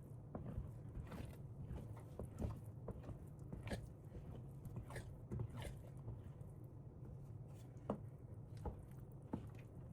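Faint, irregular clicks and knocks of kitchen work over a low steady hum.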